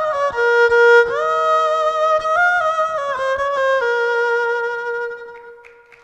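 Instrumental music playing a melody of held, stepping notes, ending on one long note that fades out near the end.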